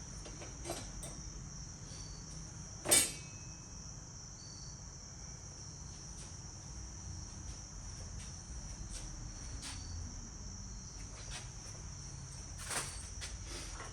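A steady, high-pitched insect trill, typical of crickets, throughout, with a sharp knock about three seconds in and a few faint clicks and rattles as tools and objects are rummaged through.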